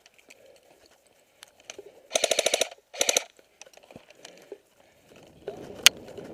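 Airsoft gun firing two short full-auto bursts of rapid clicks, one right after the other. Near the end comes a single sharp snap amid rustling movement.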